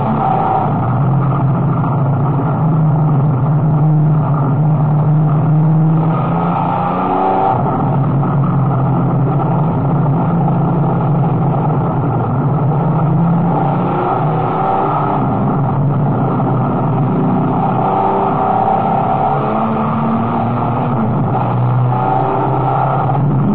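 Dodge race car engine running hard around a circuit, heard from inside the car, its note dropping and climbing again several times as it changes gear and speed.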